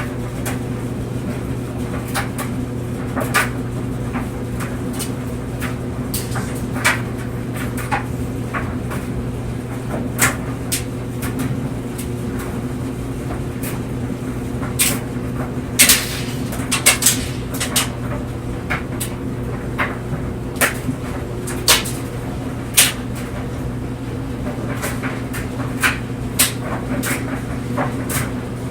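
Clothes dryer running with a steady hum as clothes tumble in the drum. Irregular sharp clicks and knocks from the tumbling load come on top, thickest about halfway through.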